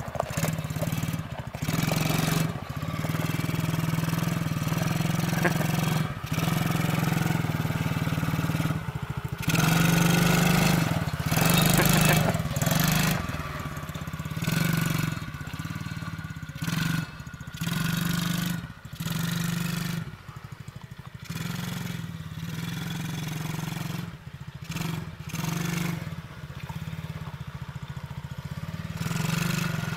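A Coolster 125cc ATV's small four-stroke single-cylinder engine running as it is ridden. The engine note holds steady for stretches and dips again and again as the throttle is eased off and on, more often in the second half.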